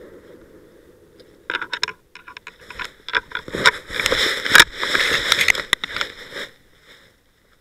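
A person moving fast through dry leaf litter and undergrowth, with a dense irregular crackle of leaves and twigs and brush scraping close to the microphone. It starts about a second and a half in, is loudest in the middle and stops shortly before the end.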